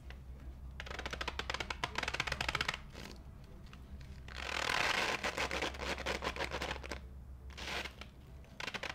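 A cornstarch-filled balloon stress ball squeezed and kneaded by hand: spells of fine crackly crunching as the packed cornstarch shifts inside the rubber, a second or two each with short pauses between.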